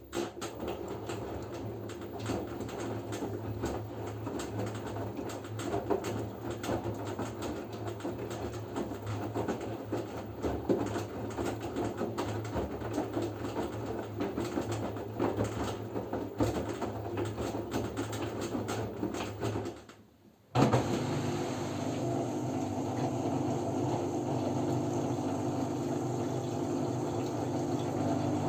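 LG F10B9LD front-loading washing machine in its rinse: the drum turns with rinse water and laundry sloshing inside for about twenty seconds. After a brief pause, a steadier hum with running water starts and continues.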